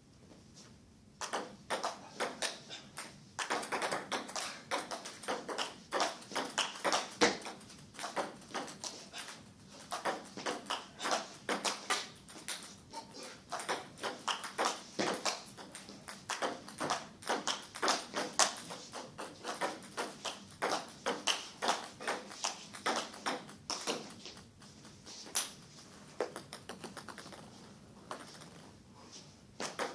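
Table tennis ball clicking off bats and table in a long rally: a quick, steady run of sharp taps that starts about a second in and dies away a few seconds before the end.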